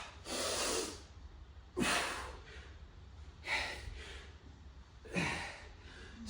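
A man breathing hard from exertion during air squats: four heavy, forceful breaths, roughly one every second and a half, in time with the reps.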